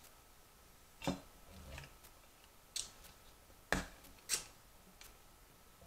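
Four short knocks and clicks from handling an insulated water bottle and opening its cap, the loudest a thump a little past halfway.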